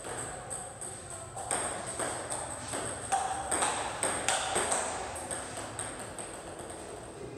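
Table tennis balls clicking: sharp, light ticks of a ball struck by a paddle and bouncing on the table, in an irregular string as serves are practised.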